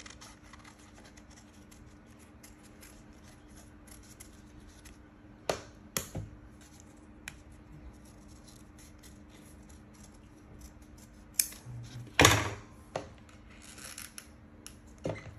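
Scissors cutting paper: a run of small snips, with a few louder sharp snips and paper handling, the loudest about twelve seconds in.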